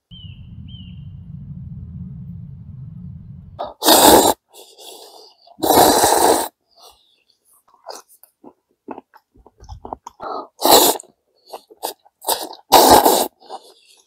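A man eating spicy noodles with chopsticks: four loud, short slurps about 4, 6, 11 and 13 seconds in, with small chewing and mouth sounds between. A low rumble fills the first three and a half seconds, and a bird chirps twice near the start.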